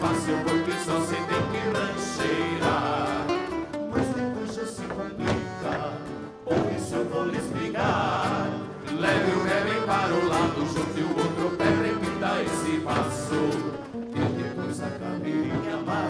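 Traditional gaúcho folk song: a voice singing over instrumental accompaniment with a steady beat.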